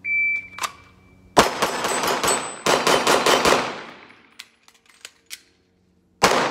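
Shot timer beeps once. A 9mm Glock 45 pistol then fires two fast strings of about five shots each, with the steel targets ringing on hits. A few light clicks of a magazine reload follow, and the next quick string of shots starts near the end.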